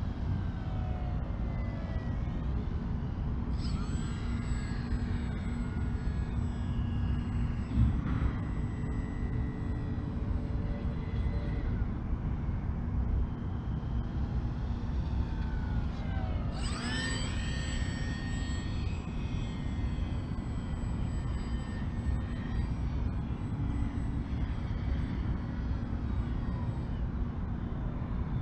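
Electric motor and propeller of an FMS MXS 1100 mm 3D RC plane whining in flight, its pitch sliding up and down as it passes close by, sharply at about four seconds and again about seventeen seconds in. There is a brief knock about eight seconds in.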